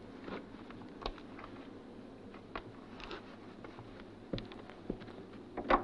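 A few scattered light knocks and footsteps in a small room, as a folder is picked up from a desk and someone walks across the floor.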